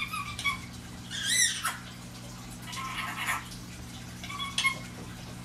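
Indian ringneck parakeet calling in short bursts: a chirp at the start, a wavering high-pitched call about a second in, a rasping chatter around three seconds, and another short chirp near the end.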